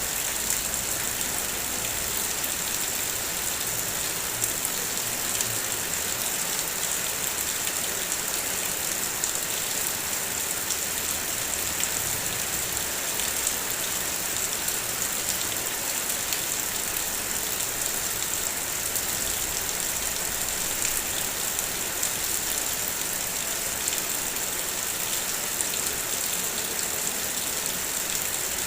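Steady heavy rain, a dense even hiss with scattered fine drop ticks.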